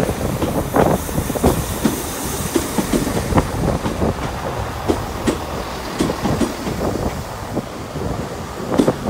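Class 166 diesel multiple unit moving over the track: its wheels clack irregularly, a few knocks a second, over a steady low rumble.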